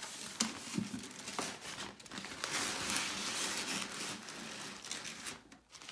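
Packing paper crinkling and rustling as a package is unwrapped by hand, with scattered sharp crackles.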